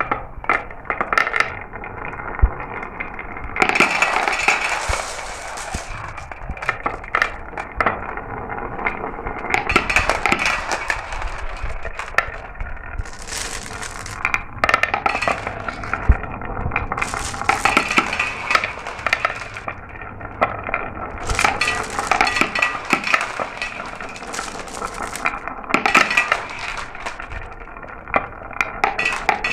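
Glass marbles rolling and clattering down a marble run, with a constant stream of sharp clicks as they knock against the track and each other, and several louder rolling rushes lasting a second or two.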